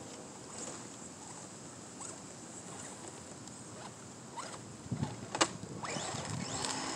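RC cars on a wood-chip slope: a few clicks, then a sharp knock about five and a half seconds in as one car drops onto another, followed by small motors whining up and down.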